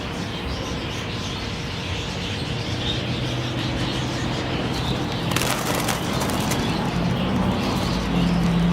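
A flock of budgerigars (parakeets) chattering and chirping together, with bursts of wing flapping. A low steady drone joins in about three seconds in.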